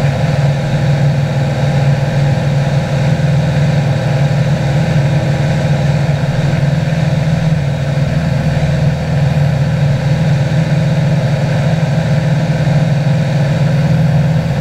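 Cessna 182's piston engine and propeller running steadily in flight, heard from inside the cockpit as an even drone.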